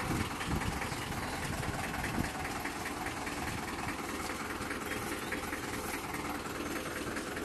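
Sonalika 750 III tractor's diesel engine running steadily, with an even rhythmic chug, with a trailer loaded with sacks of potatoes hitched behind it.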